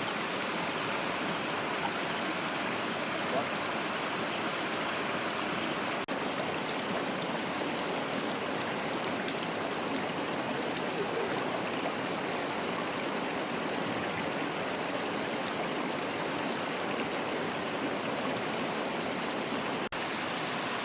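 Steady rush of flowing river water from a small waterfall, with two momentary dropouts, one about six seconds in and one near the end.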